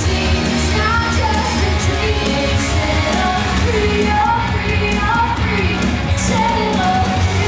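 Loud rock song with a lead singer over a full band backing: steady heavy bass, drums and guitar.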